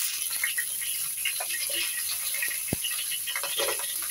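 Chicken feet frying in hot oil in a wok: steady sizzling, dotted with many small crackles and pops.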